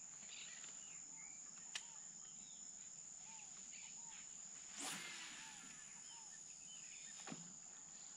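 Faint, steady high-pitched insect trill with scattered soft bird chirps. About five seconds in comes a brief swish, the fishing rod being cast.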